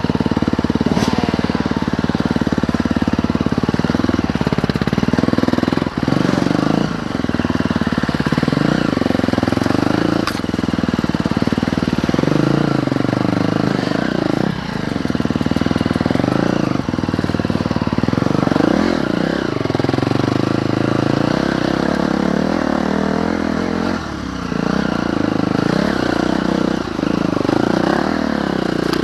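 Dirt bike engine revving up and down as it is ridden along a woods trail, the throttle opening and closing constantly, with a few short drops in loudness.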